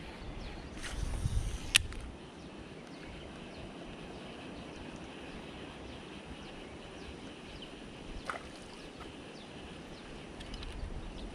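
Quiet outdoor ambience with a faint steady high hum, a sharp click about two seconds in and a softer click near eight seconds.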